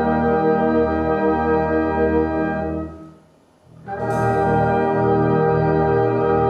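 Brass band playing sustained chords. The sound dies away about three seconds in, there is a brief pause, then the full band comes back in with a bright attack and a loud held chord.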